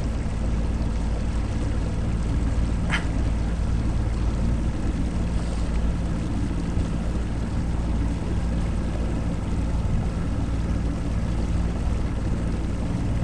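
A boat's motor running steadily with a constant low hum. A single short chirp is heard about three seconds in.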